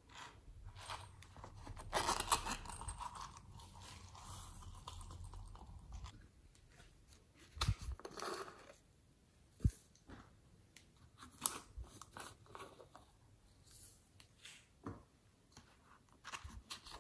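Small plastic bottles and caps handled by hand: scattered sharp clicks and short crinkling, crunching plastic sounds, densest about two seconds in.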